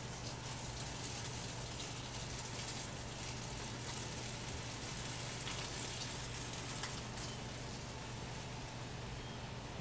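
A steady, faint spatter of liquid on leaves and mulch: a man urinating at the foot of a wall.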